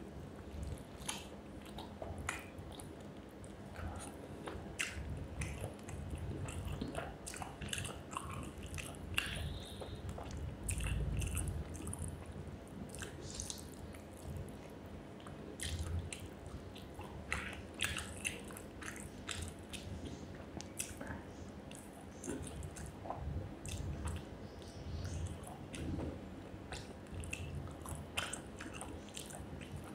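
Close-up eating sounds of a person chewing a mouthful of rice with fish curry and brinjal fry, with many short, irregular clicks.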